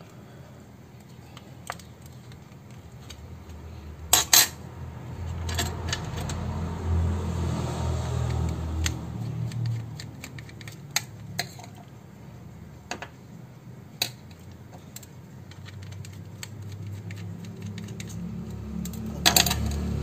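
Scattered clicks and taps of a Micromax keypad phone's plastic casing being pried apart with a metal pry tool and worked with a small screwdriver. Two louder bursts of clicking come about four seconds in and near the end.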